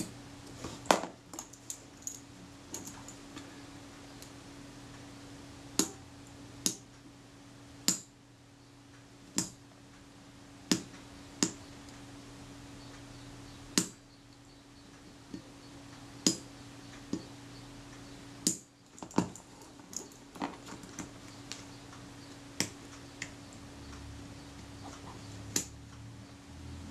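Small metal tool clicking and tapping against the metal parts of a camera leaf shutter while a spring is being unhooked, in sharp irregular clicks spaced a second or two apart. A faint steady hum runs underneath.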